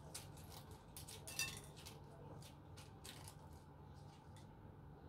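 Faint crisp crackling and rustling of cornflakes as a ball of cookie dough is rolled and pressed into them by plastic-gloved hands, in short scattered crunches, the loudest about one and a half seconds in.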